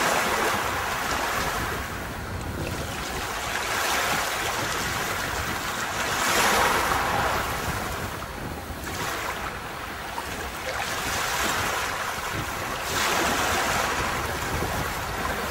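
Sea waves breaking and washing up onto a beach, swelling in a surge about every six or seven seconds, with wind rumbling on the microphone.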